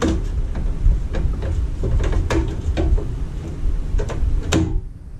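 A headlight trim ring being pressed and worked into a Jeep Wrangler TJ grille by hand: a string of clicks and knocks, about ten of them, over a low steady rumble.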